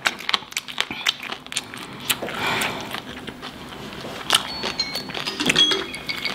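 Wet mouth sounds of eating fried chicken off the bone: smacking, sucking and small clicks. About four seconds in, a phone's countdown timer starts going off in short, repeated high tones, marking the end of the one-minute round.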